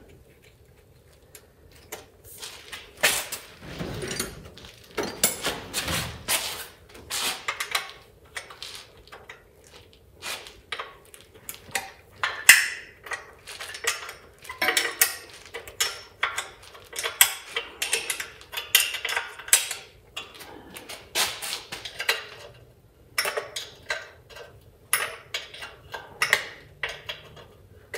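Irregular metal clinks and knocks of a VW Beetle 1600cc engine's heater box being fitted by hand against the engine's cylinder head and tinware, starting about two seconds in.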